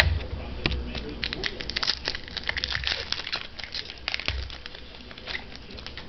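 Plastic wrapper of a trading card pack crinkling as it is opened and handled, a quick run of crackles that is densest in the middle.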